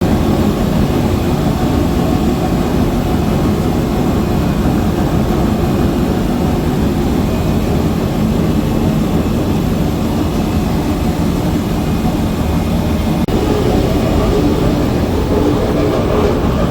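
Rooftop exhaust fan running with a loud, steady rumble and rushing noise; the noise is loud enough to have drawn complaints. A brief break about 13 seconds in, after which the same noise continues.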